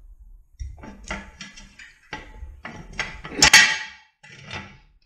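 Steel jack stand clattering and scraping on the floor as it is shifted under a transmission: a string of knocks and scrapes, the loudest clank about three and a half seconds in.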